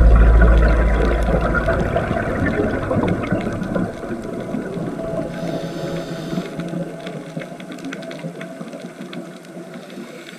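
Underwater ambience: a dense, steady crackle with a deep rumble in the first two seconds that dies away, the whole slowly growing quieter.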